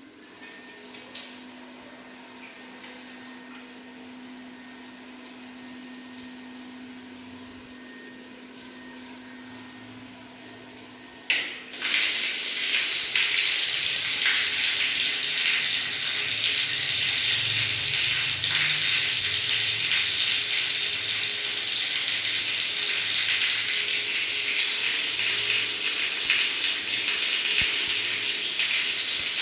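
Water running from a tap, a gentle flow with a steady hum under it. About eleven seconds in there is a click and the flow opens up into a loud, steady rush.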